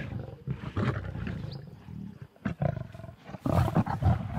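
Lions growling and snarling in short irregular bursts as they squabble over a warthog carcass: competition for food at a fresh kill.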